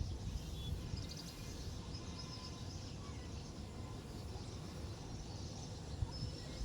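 Wind buffeting the microphone with a low, uneven rumble, and faint high chirps of small birds scattered through it.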